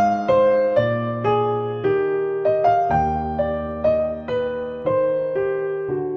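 Calm piano background music: a slow melody of single struck notes over low bass notes, about two notes a second, each note ringing and fading.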